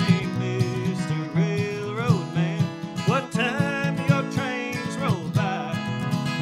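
Old-time song played on a solo acoustic guitar, strummed and picked in a steady rhythm, with a man singing the melody over it.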